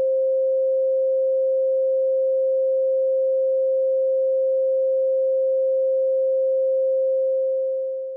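A 528 Hz pure sine tone held steady, fading out near the end.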